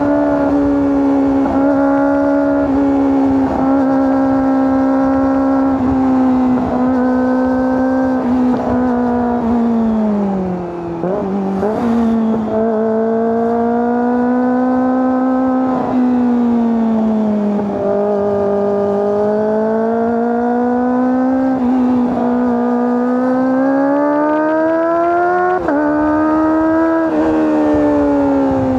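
Kawasaki ZX-25R's 250 cc inline-four engine and exhaust running at high revs under way, the pitch holding fairly steady with slow rises and falls as the throttle changes. About ten seconds in the revs drop briefly, then build again.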